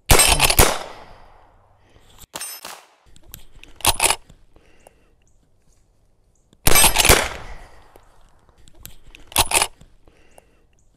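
An 1873 Winchester lever-action rifle in .32-20 (32 WCF), fitted with a short-stroke kit, fires two shots with echo, one at the very start and one about two-thirds of the way through. In between and after, the lever is worked in quick runs of metallic clacks.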